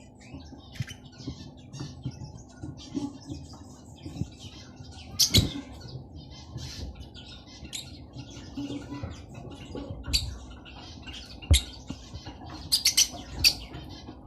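Pet lovebirds making many short, high chirps and twitters, with a few sharp taps or clicks scattered through, the loudest of them near the middle and a cluster near the end.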